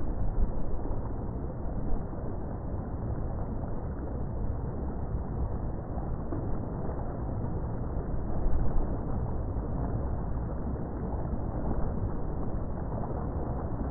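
Water sloshing and splashing in small choppy waves, with a low wind rumble on the microphone; a louder surge comes about eight and a half seconds in.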